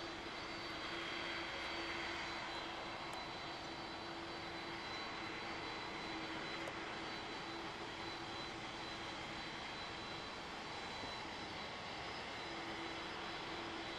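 Boeing 767-200ER's twin jet engines running at taxi power as the airliner rolls along the taxiway: a steady jet rumble with a constant whine.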